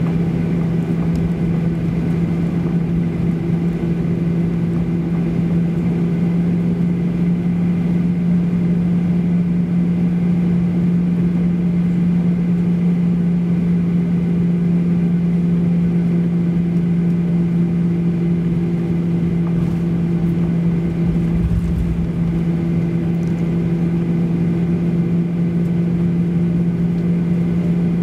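Airliner cabin noise while taxiing: the jet engines and cabin systems keep up a loud, steady hum with a strong low drone. A brief low rumble comes about three-quarters of the way through.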